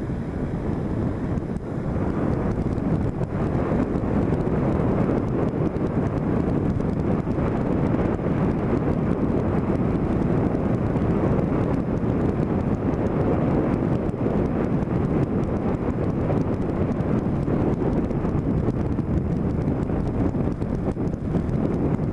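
Wind buffeting the microphone over a motorcycle's engine and road noise while riding. The level rises over the first couple of seconds, then holds steady.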